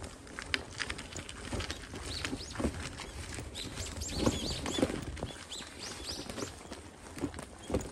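Footsteps on a dirt path, an uneven patter of soft steps, with small birds chirping in the trees: a run of short, high chirps from about two seconds in until near the end.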